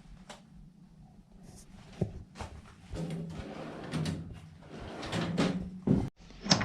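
Metal tool drawer of a DeWalt shelving unit being slid along its runners, with a knock about two seconds in, a rumble for about three seconds, and sharp clicks near the end.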